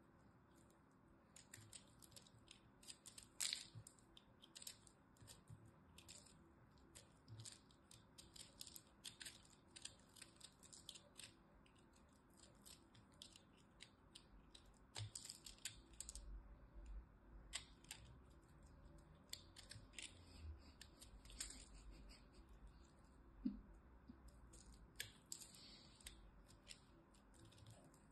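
Craft knife blade cutting into a block of dry, crumbly soap: quiet, crisp crackling clicks, several a second, as the blade bites and small flakes break off.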